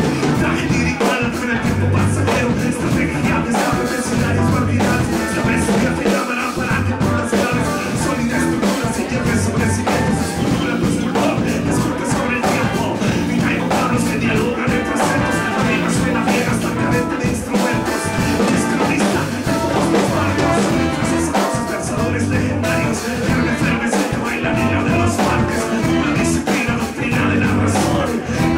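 Live band playing a steady groove, with saxophone and electric guitar over a beat and a vocal part on top.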